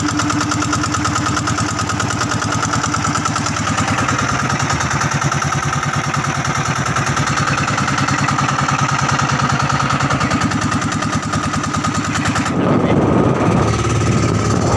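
Outrigger boat's (bangka's) inboard engine running steadily under way with a fast, even beat. A louder rushing noise joins in near the end.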